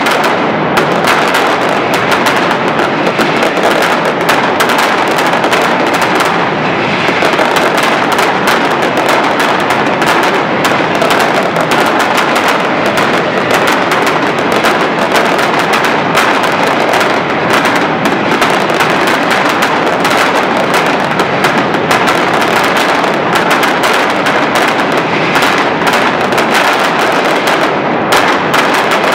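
Mascletà: a dense, unbroken barrage of firecracker bangs going off in very rapid succession, loud and steady throughout.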